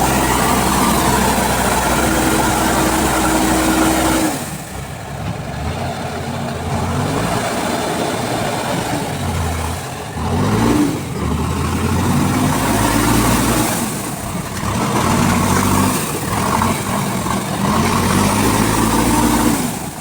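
A heavy vehicle's engine running steadily, then from about four seconds in revving up and down again and again, its pitch rising and falling.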